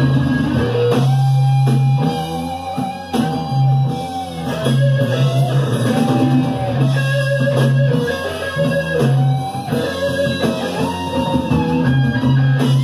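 Live rock band playing an instrumental break: an electric guitar lead with bent notes over bass guitar and drum kit, taken straight from the mixing desk onto cassette.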